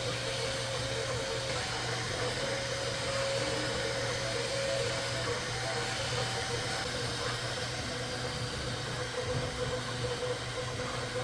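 Bambu 3D printer running as it prints lattice infill: its motors whine in short notes that change pitch from move to move as the print head travels back and forth, over a steady fan hum.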